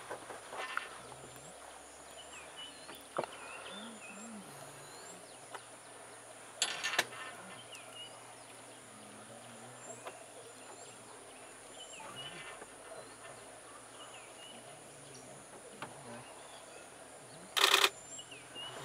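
Outdoor wetland ambience: scattered small bird chirps over a steady high insect drone, with two short, loud rattling bursts, one about seven seconds in and one near the end.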